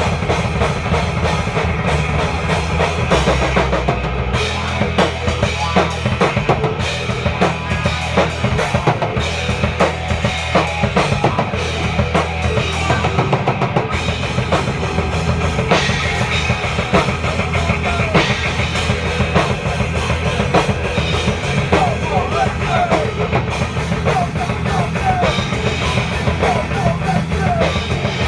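A metal band playing loudly at rehearsal: drum kit, electric guitar and bass guitar together.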